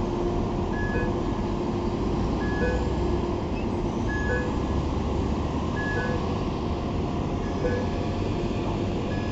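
A vehicle's reversing alarm sounding a short two-note beep about every second and a half to two seconds, over the steady low rumble of heavy engines running.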